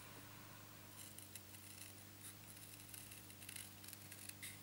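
Small Paper Snips scissors cutting card stock: a run of faint, quick, crisp snips, coming more often after about a second, over a low steady electrical hum.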